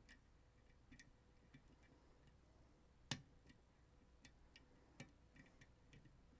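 Faint, scattered clicks of a lock pick working the spool and driver pins inside a DOM RS Sigma lock cylinder, with one sharper click about three seconds in.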